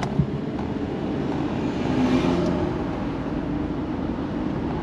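Engine and road noise of a moving van heard from inside the cabin, with a short knock just after the start and a brief swell of louder road noise about two seconds in.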